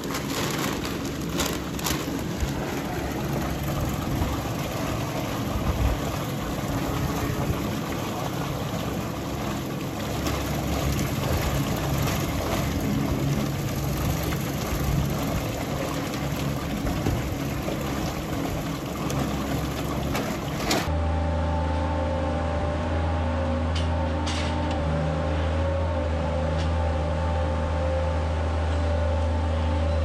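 Steady churning of a stainless steel calf milk mixing tank, its agitator running as milk replacer powder is poured in, with scattered clicks. About two thirds of the way through it gives way suddenly to the steady, even hum and low drone of a feed wagon's machinery running.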